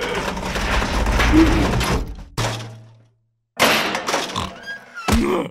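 Cartoon sound effects of a metal bin rolling in: a low rumbling rush for about two seconds, a thunk, a brief silence, then another clattering burst ending in a sharp thump as it comes to rest.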